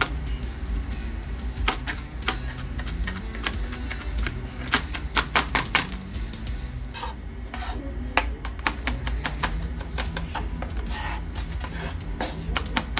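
Knife chopping fresh cilantro on a cutting board: quick, irregular knocks over background music.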